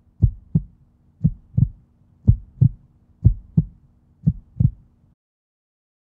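Heartbeat sound effect: deep double thumps, lub-dub, about once a second over a faint steady hum. It stops suddenly about five seconds in.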